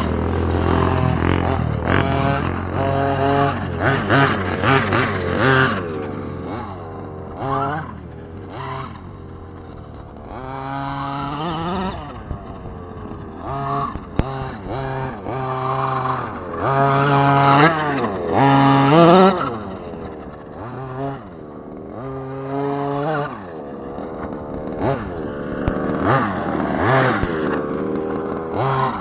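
Redcat Rampage MT V3's small two-stroke gas engine revving up and falling back over and over as the truck is driven hard over dirt. A deeper engine drone sits underneath for the first several seconds.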